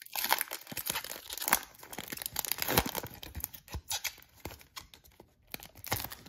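Foil wrapper of a Donruss Elite football card pack being torn open and handled, with crackly tearing and crinkling of the foil and a brief lull a little after five seconds.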